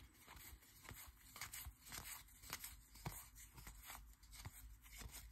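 A run of faint, soft clicks and slides as trading cards are flicked one at a time from the front of a stack to the back.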